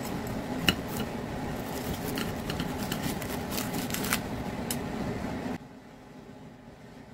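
Knife and fork cutting through a flaky croissant sandwich on a plate: crackles of the crust and sharp clicks of cutlery, the sharpest about a second in, over a steady hum that stops about five and a half seconds in.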